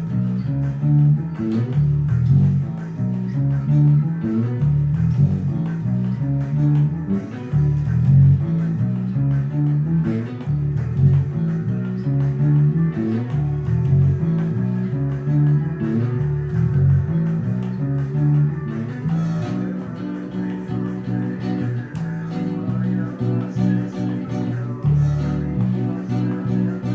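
Guitar music: plucked guitar notes over a bass line, playing steadily.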